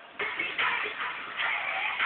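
Eurobeat dance track cutting in abruptly just after the start, over a faint steady tape hiss, sounding dull with no treble as from an old VHS tape.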